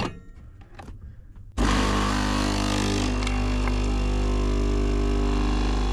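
Electric coffee machine's pump switching on about one and a half seconds in, after a few soft clicks, and running with a steady low hum while coffee pours into the cup.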